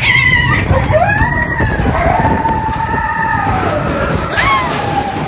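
Big Thunder Mountain Railroad mine-train roller coaster rumbling along its track, with long high cries from the riders that glide up about a second in, hold, and fall away near the end.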